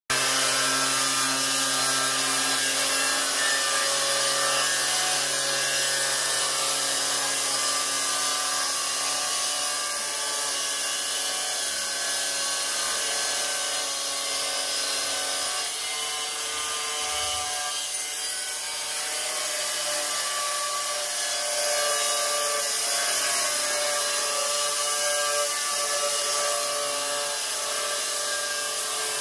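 Handheld angle grinder with a thin diamond disc running steadily under load as it grinds a 45-degree jolly (miter) bevel along the edge of a tile, a continuous gritty grinding with a whine that shifts pitch as the pressure changes.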